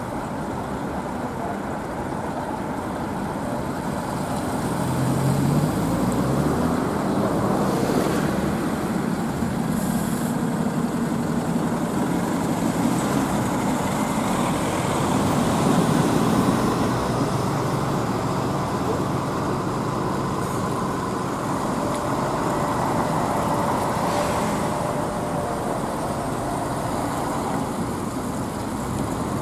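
Diesel bus engines running at a bus station, among them Ikarus articulated buses. An engine note rises about five seconds in, and the engine noise swells through the middle before easing off.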